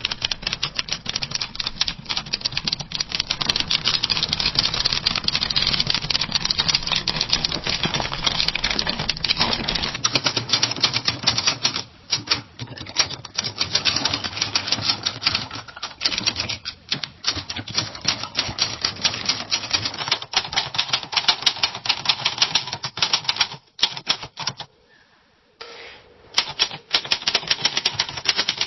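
Typewriter keys typing fast, a dense run of sharp clacks with a few short pauses, from several typewriter recordings played one after another. The typing stops briefly for under two seconds near the end.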